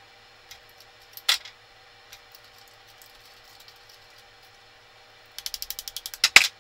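Small metal parts and a hand tool clicking and knocking while a paint sprayer's pump is taken apart. There are a few separate clicks and a sharp knock about a second in, then a quick run of about ten ratchet-like clicks near the end.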